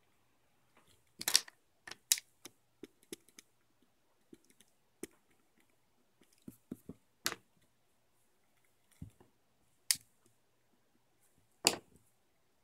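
A pen drawing on paper on a table: short scratchy strokes and irregular sharp taps, with about five louder knocks among them.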